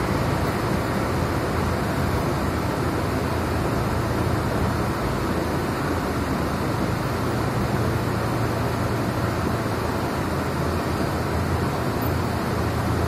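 Steady low hum and hiss inside the cab of a Kotoden 1100-series electric train (ex-Keio 5000 series) rolling slowly along the station platform.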